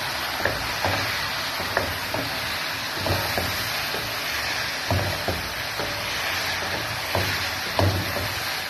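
Coconut milk curds frying in their own separated oil in a metal pan, sizzling steadily, with a wooden spatula stirring and knocking against the pan about once or twice a second. The oil has already separated and the curds are browning into latik, the last stage of making coconut oil.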